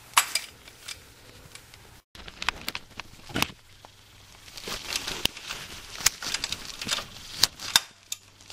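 Hand ratchet with a 15 mm socket clicking and tapping in irregular bursts as it backs out the loosened lower bolt of the starter.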